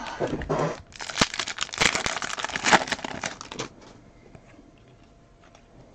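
Foil trading-card pack wrapper being torn open and crinkled by hand: a dense crackling crinkle for about three seconds that stops well before the end.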